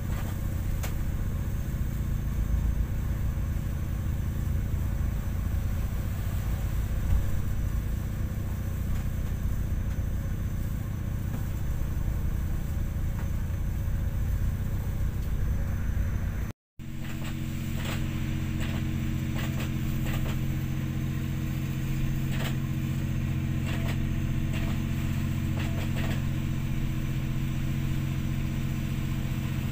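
Steady low drone of a ship's engines heard inside the wheelhouse. Partway through it drops out for a moment. After that the hum is steadier, with a few light clicks.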